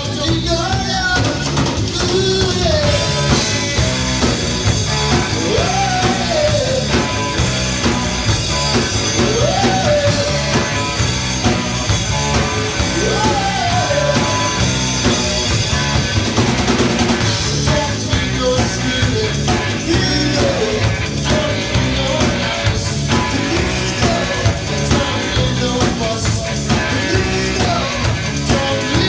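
Rock band playing live: a loud full-band mix with a melody sliding up and down over a steady drum beat.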